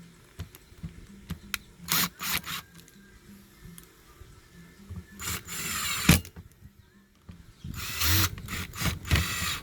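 Short mechanical rasps and clicks from hands-on work on a Dolmar H 45M6 chainsaw: a few sharp clicks, then a rasping burst about a second long midway, and another cluster of rasps near the end.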